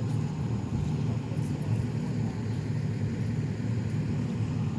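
Diesel engine of a parked fire engine idling with a steady low rumble.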